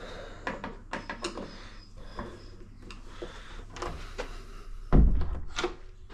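Light clicks and rattles from a newly fitted door lever handle and latch, then the door pushed shut against its frame with a loud thump about five seconds in; the latch doesn't catch.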